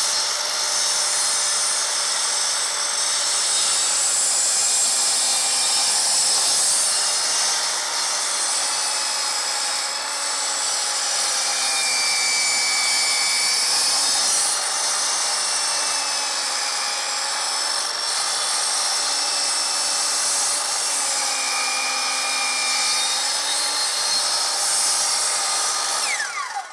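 Kobalt miter saw running while its blade is worked slowly through the end of a thick glued-up wooden stair tread to square it off. The motor's whine wavers up and down as the cut loads it. Near the end the saw is switched off and the blade winds down.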